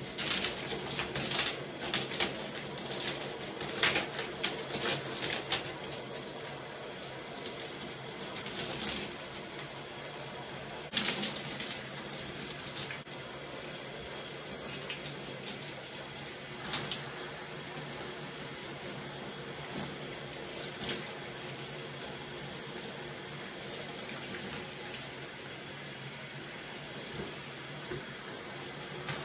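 Shower water running steadily in a tiled shower while hair is washed, with brief wet splashing and rubbing sounds of hands working shampoo lather through the hair, thickest in the first few seconds and again about 11 seconds in.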